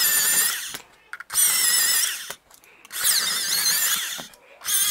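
Battery-powered electric pencil sharpener's single motor running in short bursts of about a second, a high whine that wavers in pitch, each burst a pencil being pushed in and sharpened. Three bursts, with a fourth starting near the end.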